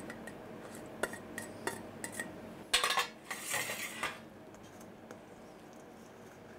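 A utensil tapping and scraping against a stainless-steel mixing bowl as couscous and diced vegetables are tossed together. There are a few light clicks at first, then a louder stretch of scraping a little under three seconds in that lasts about a second and a half.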